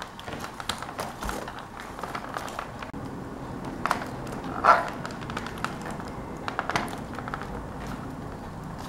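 Scattered small plastic clicks and scraping as a pry tool works a laptop keyboard's retaining clips loose, with one louder short sharp sound about halfway through.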